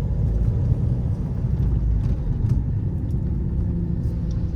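Mahindra XUV500's mHawk four-cylinder turbo-diesel engine running under way at a steady pace: a low, even rumble.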